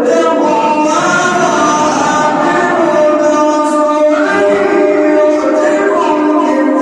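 A man's voice chanting Quran recitation in a drawn-out melodic style, holding long notes that glide up and down in pitch.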